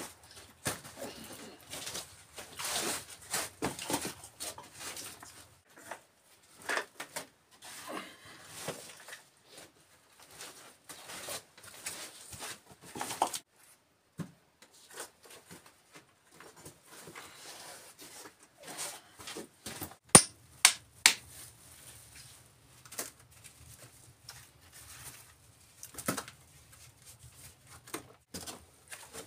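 Hand-digging soil and stones out of an earth floor and putting them into a plastic bucket: irregular scraping and rustling with scattered knocks, and a few sharp clicks of stone on stone about two-thirds of the way through.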